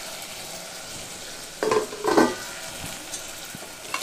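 Onion-tomato masala frying in oil in an aluminium pressure cooker, a steady sizzle. A spoon scrapes and stirs against the pot, louder twice a little under two seconds in.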